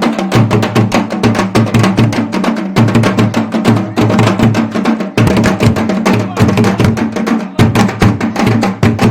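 Music with fast, steady percussion strikes over a sustained low bass line.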